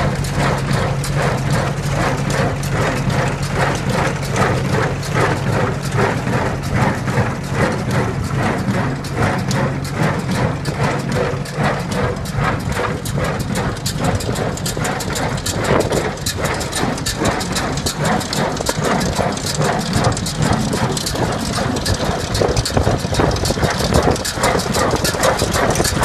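Footsteps crunching on gravel, with a steady low hum underneath that stops about eleven seconds in.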